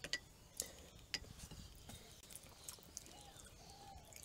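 Quiet, with a few light clicks and crackles as a crispy fried chicken chaap is torn apart by hand. Faint short calls from a bird in the distance come in over the last second or so.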